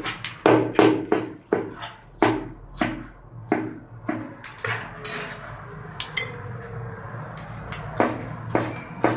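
Chinese cleaver chopping a green pepper on a plastic cutting board: sharp knocks about two a second, pausing for a couple of seconds around five seconds in, then starting again near the end.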